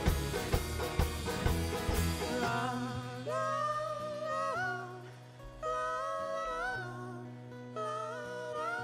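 Live acoustic string band (banjo, acoustic guitar, upright bass) playing loudly with heavy regular beats. About two and a half seconds in, it drops to a quieter passage of long sung notes that bend up and down in pitch over held bass notes.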